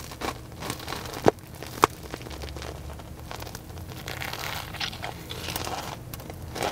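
Eating a sugar-coated Korean corn dog close to the microphone: biting and chewing with soft crunching and crackling of the crust, and two sharp crunches a little over a second in.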